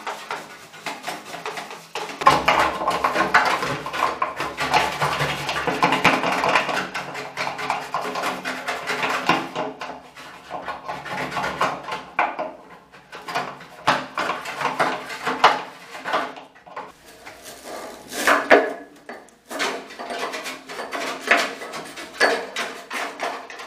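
Brushes scrubbing the inside of a 1976 Mazda Cosmo's old steel fuel tank: fast, uneven scraping and rattling strokes as the brush and its handle knock against the sheet-metal walls and the filler and sender openings, to loosen dirt left after the cleaner soak.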